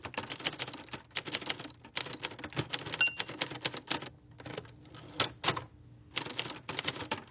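Hermes 3000 manual typewriter being typed on: a quick, uneven run of sharp key and typebar strikes, with a couple of short pauses and a brief ring about three seconds in.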